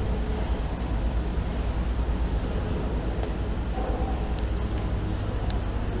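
Steady street and traffic noise with a strong low rumble.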